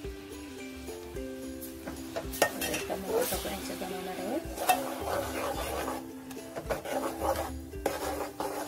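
Steel spoon stirring jaggery melting with a little water in an aluminium pot, scraping and clinking against the pot's side a few times.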